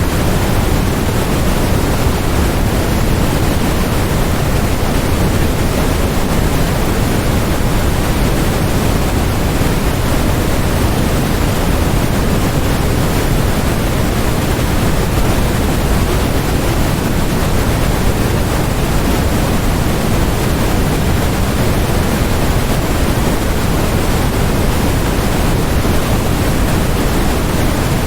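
Steady synthetic noise, an even, unchanging hiss with no events in it, fuller in the low end than at the top.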